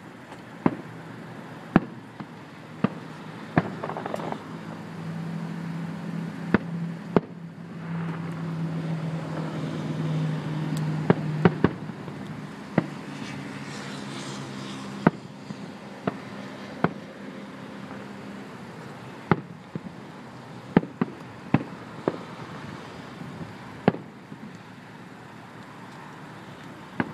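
Fireworks display: aerial shells bursting in a string of sharp bangs, irregularly spaced about one to two seconds apart, a few in quick clusters.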